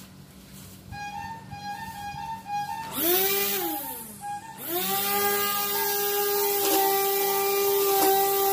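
Krisbow corded electric string trimmer switched on about three seconds in: its motor whines up to speed, winds down when let go, then starts again about a second and a half later and runs on with a steady high whine and the hiss of the spinning nylon line. Soft background music plays before the motor starts.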